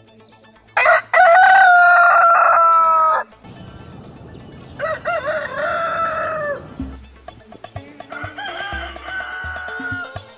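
Rooster crowing twice: one long, loud crow, then a quieter second crow. About seven seconds in, music with a steady beat starts.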